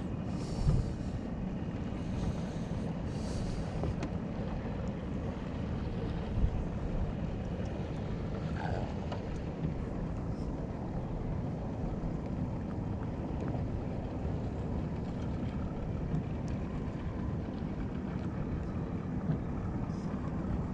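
Steady wind rumbling on the microphone, with two brief hisses in the first few seconds.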